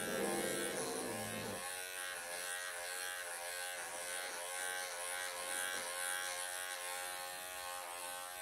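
Wahl cordless pet clippers running steadily through a Persian cat's thick, matted coat, a constant electric buzz whose pitch wavers slightly as the blade works through the fur. A brief low rumble sounds under the buzz in the first second and a half.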